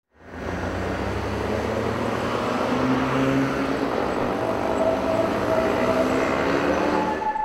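City traffic ambience: a steady wash of road and engine noise that fades in quickly at the start and cuts off near the end.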